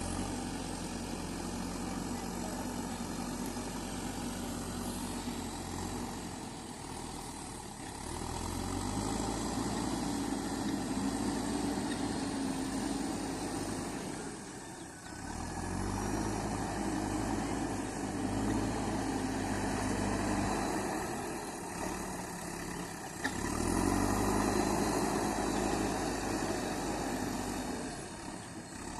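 JCB 3DX backhoe loader's diesel engine running as it works. The engine note drops briefly and then rises to a louder, heavier pull three times, about every seven to eight seconds.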